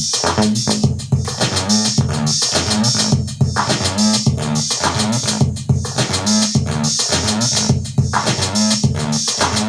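Acid electronic music: a Behringer TD-3 bass synthesizer playing a repeating stepped bassline with a bright, resonant filtered tone over a steady programmed drum beat from a Maschine.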